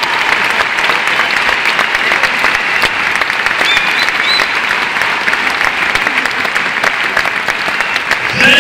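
Large audience applauding steadily, a dense patter of clapping hands.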